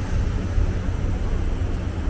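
Steady low rumble of city street traffic, with no distinct single vehicle standing out.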